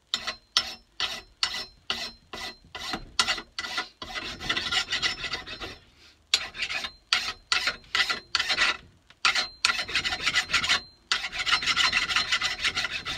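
Hand rasp scraping back and forth across the end of a new wooden axe handle and its hardwood wedge, levelling the sawn-off wedge flush with the head. Short quick strokes at first, a brief pause about halfway, then longer, almost unbroken rasping near the end.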